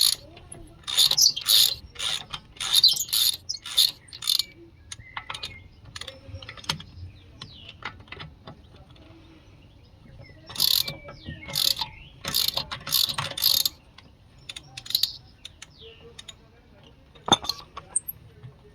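Ratchet wrench clicking in quick back-and-forth strokes as wheel nuts are undone, in two bouts with a pause between, then a single click near the end.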